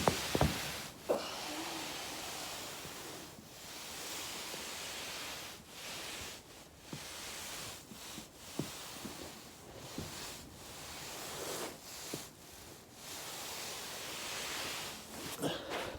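A body rolling back and forth on a foam roller: a rubbing hiss of clothing and foam in strokes a second or two long with short pauses. A couple of sharp pops near the start are the back joints cracking under the roller.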